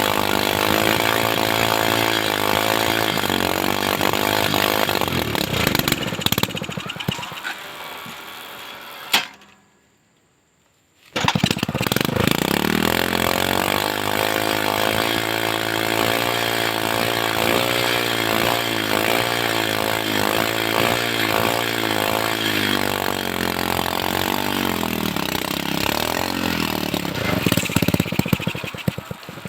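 Motorcycle engine driving a log winch, running steadily under load. It slows down about six seconds in and drops out for about two seconds, then revs up again and runs steadily before slowing again near the end.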